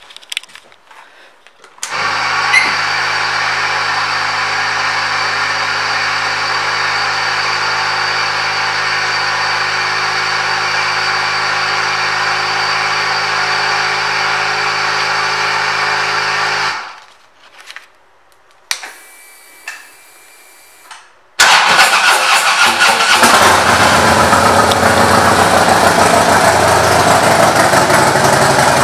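A steady, even hum starts about two seconds in and cuts off sharply some fifteen seconds later. After a few quiet seconds with small clicks, the 2013 Harley-Davidson CVO Ultra Classic's Twin Cam 110 V-twin fires up suddenly and runs loudly through its aftermarket Cobra exhaust.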